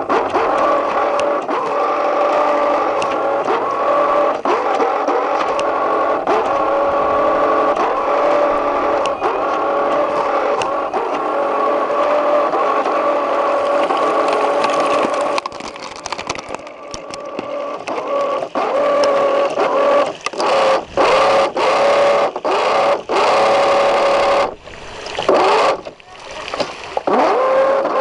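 Boat motor running at a steady speed with a constant drone. About halfway through the sound starts cutting in and out several times.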